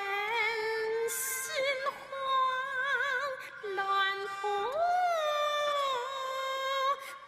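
A woman singing a slow, drawn-out line of Henan opera (Yuju), her voice wavering on long held notes and gliding up about four and a half seconds in. The line is 一阵心慌乱扑腾, "a fit of panic flutters in my heart".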